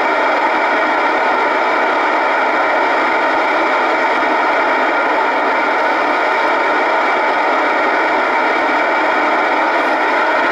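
Steady hiss of an Icom IC-R8500 communications receiver in FM mode with the squelch open, tuned near 436.79 MHz for the SO-50 satellite downlink. Only noise comes through and no station can be made out: the satellite's signal is not being received.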